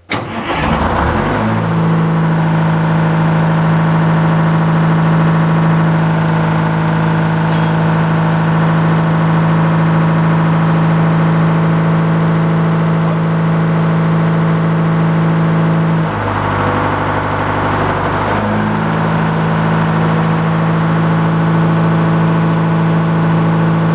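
Portable sawmill's engine starting on its push-button starter and catching at once, then running steadily at a low idle. About two-thirds of the way through its note wavers and dips for a couple of seconds before settling back to the same steady idle.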